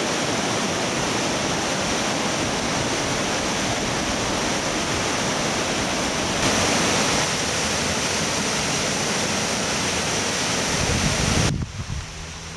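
High water rushing through the open gates of a lake dam: a steady, loud whitewater rush that cuts off suddenly near the end.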